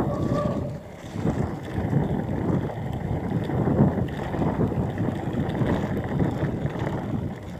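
Mountain bike rolling fast down a dirt forest trail: a continuous rumble of knobby tyres on dirt and wind rushing over the microphone, broken by frequent small knocks and rattles from the bike over bumps.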